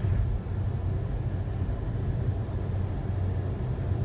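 Steady low rumble of a car driving at expressway speed, heard from inside the cabin: road and engine noise with no sudden events.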